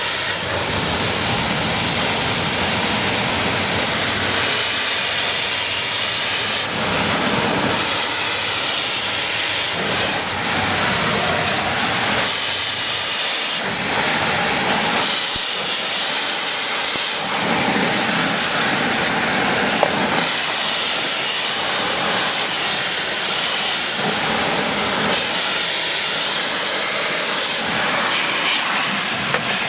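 Pressure washer jet spraying in a steady loud hiss, its tone shifting every few seconds as the spray moves across dirty surfaces.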